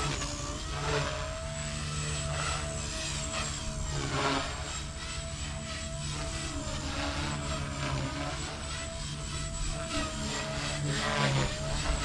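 Blade Fusion 180 electric RC helicopter in flight. Its brushless motor and rotor head give a steady whine, with the rotor whoosh swelling and fading several times as it manoeuvres.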